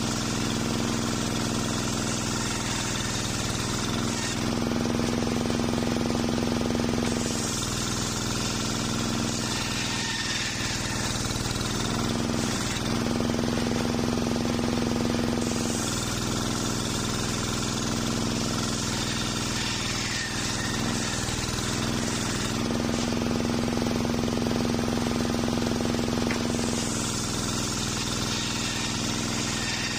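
Homemade table circular saw running steadily while ripping old waru (sea hibiscus) timber into boards. There are four long cutting passes, each a loud hissing rasp over the saw's steady hum, and the blade spins free in the short gaps between them.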